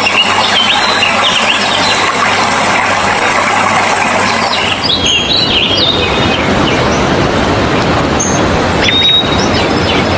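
Birds chirping in short, repeated calls over a loud, steady rush of running water, with one longer whistled note near the end.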